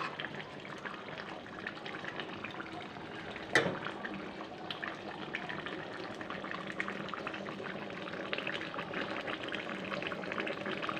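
Chicken curry gravy simmering at a boil in a metal pan, a dense steady crackle of small bubbling pops, just after garam masala has been stirred in. A single sharp knock sounds about three and a half seconds in.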